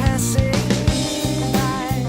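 Rock music with drums, bass and a sung or lead melody line over a steady beat.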